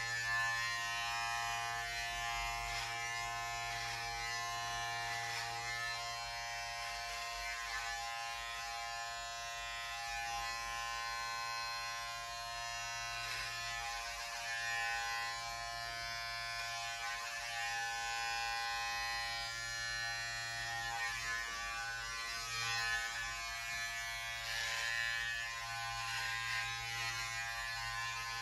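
Electric hair clippers running with a steady buzz. The cutting hiss swells and fades a little as they pass over the head, touching up uneven spots in a fresh buzz cut.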